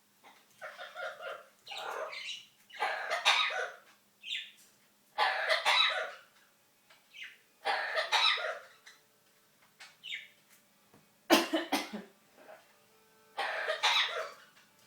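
Amazon parrot mimicking a human cough: a string of rough coughs, one every second or two, with a couple of short high chirps between them. The coughing is learned mimicry, not a sign of illness.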